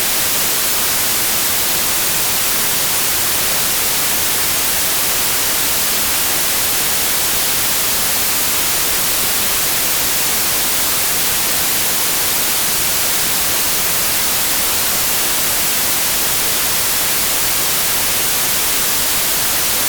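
Steady white-noise test signal: an even, unchanging hiss, brightest in the highs, with no tones or breaks.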